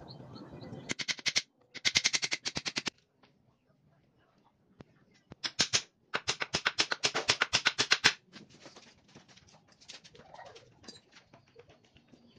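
Rapid hammer taps driving nails into a wooden frame: two runs of quick, sharp strikes with a pause between, the second longer, then a few light taps.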